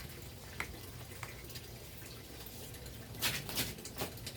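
Light handling noises while repotting: two faint clicks, then a few short rustling scrapes about three seconds in, as the pot and potting substrate are worked by hand.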